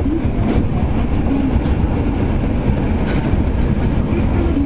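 Kita-Osaka Kyuko 9000 series subway train running through the tunnel, heard from inside the car behind the driver's cab: a steady, loud rumble of wheels on rail mixed with air-conditioning noise.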